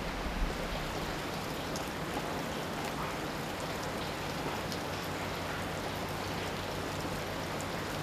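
Steady rush of running water, with a few faint drips ticking over it.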